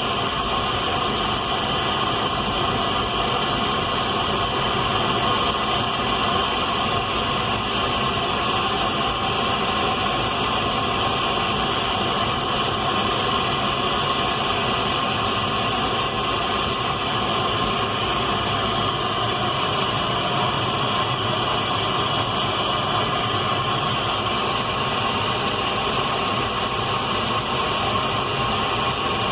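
Radio static: a steady hiss of noise with faint steady tones in it, unchanging throughout.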